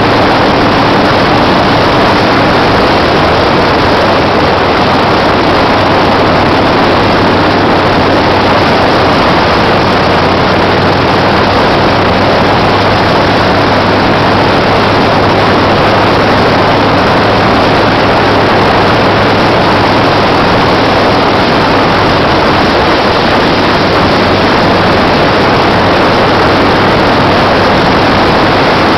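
Harley-Davidson Shovelhead V-twin running steadily at cruising speed, heard from the rider's seat under heavy wind rush on the microphone.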